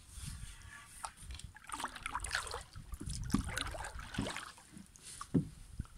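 Sea water lapping and trickling around a small dinghy's hull where it rests against rocks, with wind rumbling on the microphone.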